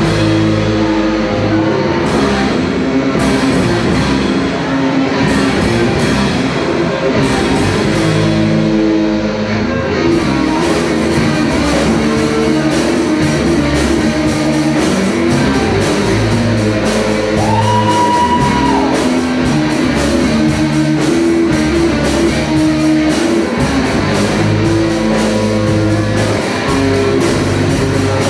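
Rock band playing live: electric guitars, electric bass and drums.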